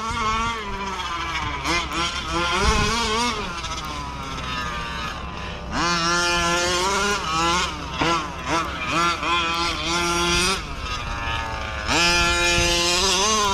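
Two-stroke petrol engine of a 1/5-scale 30 Degrees North DDT gas RC car revving up and down again and again as it is driven. It holds at higher revs for a few seconds at a time in the second half.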